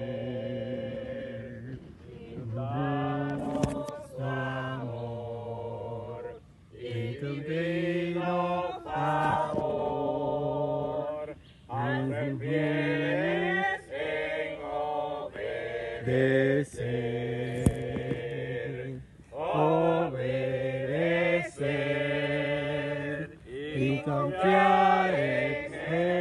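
Small group of voices singing a Spanish-language hymn together, in sung phrases broken by short pauses.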